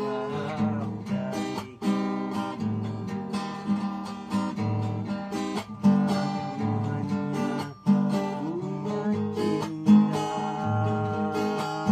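Acoustic guitar strummed in a steady rhythm, its chords changing every couple of seconds over a low bass note.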